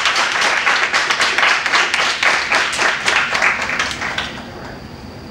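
Audience applauding, a dense patter of many hands clapping that thins out and fades away about four seconds in.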